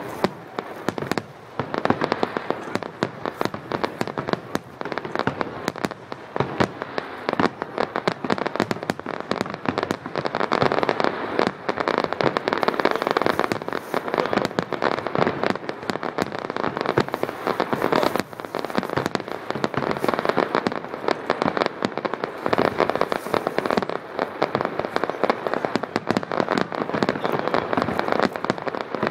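Aerial firework shells bursting one after another in a dense, unbroken barrage of bangs and crackling.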